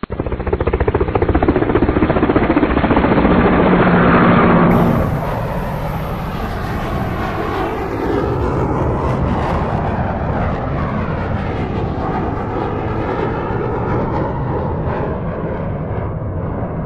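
Electronic jet-engine whir from a battery-operated toy Airbus A380 airliner, running steadily. It starts suddenly, changes tone about five seconds in, then carries on with a wavering rise and fall.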